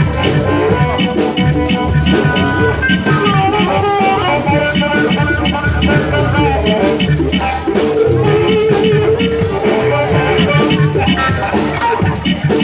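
Live blues band playing an instrumental stretch over a steady drum-kit beat, with electric guitar and keyboard; a lead line holds a long, wavering note about two-thirds of the way through.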